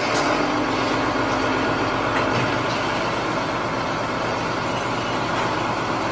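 A heavy engine running steadily at an even pitch.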